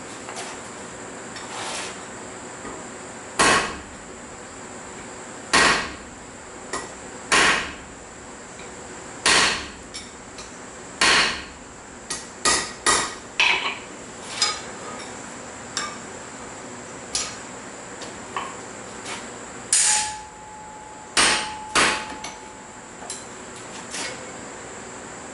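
Blacksmith's hammer striking steel on an anvil: heavy blows spaced about two seconds apart, then a quick run of strikes, then lighter, irregular taps. A short ringing tone sounds during the later blows, and a faint steady high whine runs underneath.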